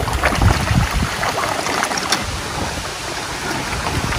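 A crowd of koi thrashing and splashing at the pond surface as they jostle for food, a busy patter of small splashes.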